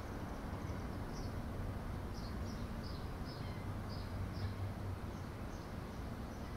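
Small birds chirping: about a dozen short, high, falling chirps at irregular intervals, over a steady low hum.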